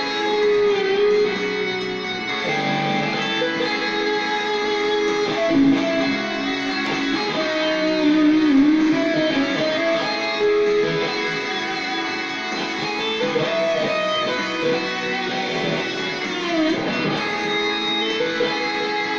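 Electric guitar played continuously: melodic single-note lines with sustained, bent and wavering notes.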